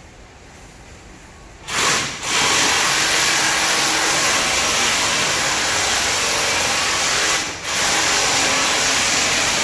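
Loud, steady rushing hiss from a machine or tool, starting about two seconds in, with a short break near the end.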